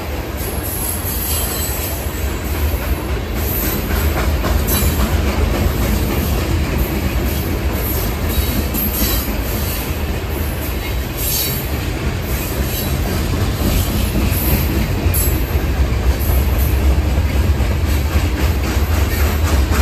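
Freight train cars rolling past with a steady low rumble of steel wheels on rail, clicking over rail joints and intermittent high-pitched wheel squeal.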